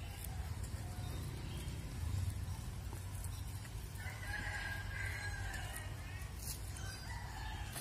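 A rooster crowing once, a call of about two seconds starting about four seconds in, with a shorter call near the end, over a steady low rumble.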